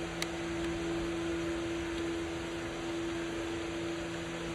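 Steady machine hum with a constant hiss, like a running fan, and one light click about a quarter second in.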